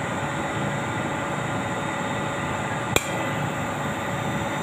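A single sharp metallic clack about three seconds in from an electric crane hoist worked by its pendant push-button control, over a steady hum.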